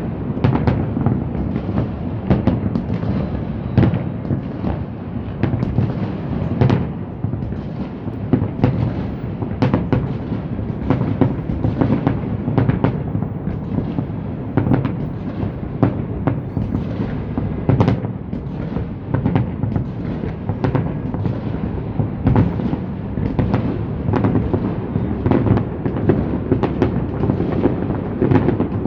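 Aerial fireworks shells bursting in quick, overlapping succession: a continuous run of booms and crackles with no pause.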